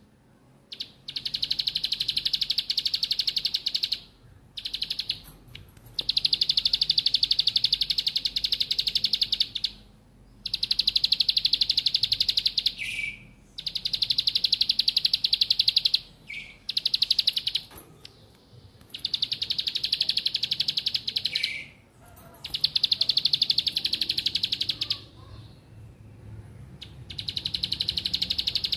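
Caged prinia singing in long trills of very rapid high notes, each run lasting a few seconds with short pauses between: the continuous rattling song that keepers call ngebren.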